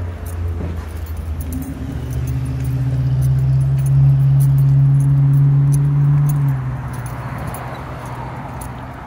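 A motor vehicle's engine hums steadily close by, swelling to its loudest for a few seconds in the middle and then falling away, over a low rumble. Small light clicks, like keys or a lanyard jingling, come and go throughout.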